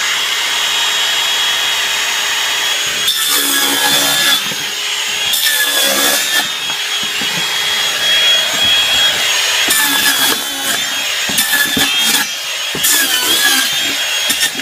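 Makita cordless circular saw running with a steady high whine as it cuts open a cardboard box. The pitch wavers during four rough, noisy spells where the blade bites into the cardboard.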